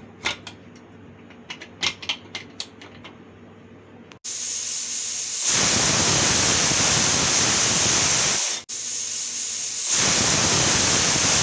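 Pressure cooker whistle venting steam under full pressure: a loud hiss starts suddenly about four seconds in, stops for a moment about nine seconds in, and starts again. A few light clicks come before it.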